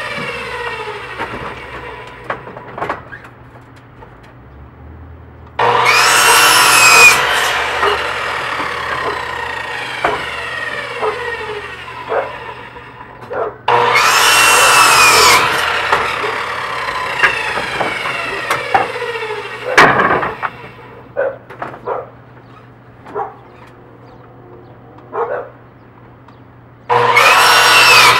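Electric sliding compound miter saw making three cuts through wooden deck spindles: each cut starts suddenly with the motor whine and the blade biting the wood, then the blade winds down with a falling whine. Wooden knocks and clatter come between the cuts as the pieces are handled.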